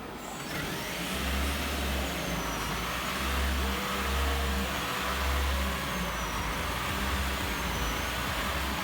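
Toyota Corolla Cross on the move: steady engine and road noise with a low throb that swells and eases, and a faint high whine gliding up and down.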